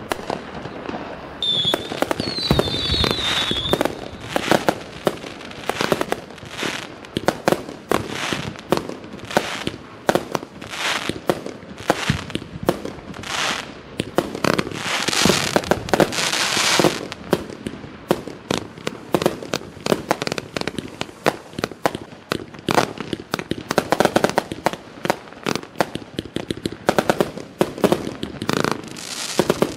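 A 255-shot compound consumer (1.4G) fireworks cake firing: a rapid, continuous run of shots and bursts, with a brief whistle about two seconds in.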